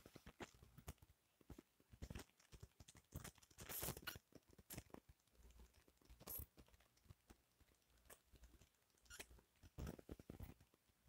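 Near silence with faint, irregular clicks and rustles.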